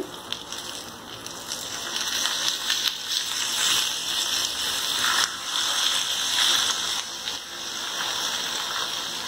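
Stuffed okra frying in oil in a pan, sizzling as a steady hiss that grows louder in the middle and eases off toward the end.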